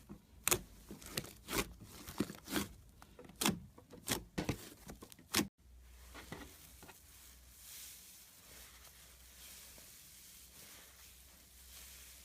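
Slime being handled close to the microphone: a run of sharp crackling pops for about the first half, then, after an abrupt cut, faint soft squishing.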